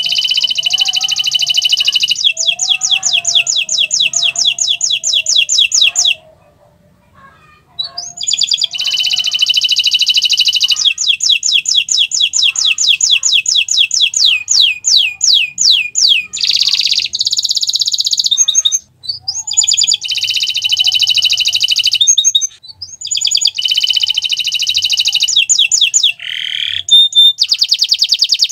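Domestic canary singing long phrases of rapid, evenly repeated trill notes, high-pitched. The phrases are split by short pauses, the longest about two seconds, starting around six seconds in.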